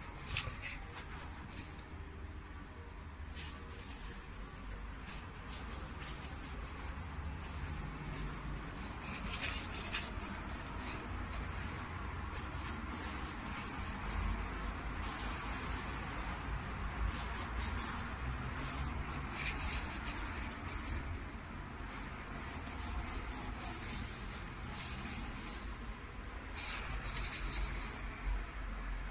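Swan feather dragging and brushing ink across unbleached Wenzhou paper in short, irregular scratchy strokes, over a low rumble.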